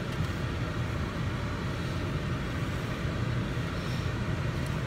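Steady low hum and air rush inside a stationary car's cabin, from the engine idling and the air conditioning running.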